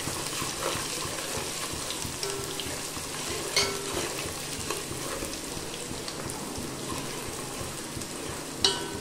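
Spice masala of fried onions, ginger-garlic paste and ground spices sizzling in hot oil in a metal pot as it is stirred with a spoon: a steady crackle. The spoon knocks against the pot with a short ring twice, about three and a half seconds in and near the end.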